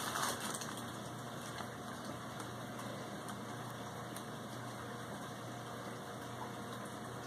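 Room tone: a steady low mechanical hum with faint hiss.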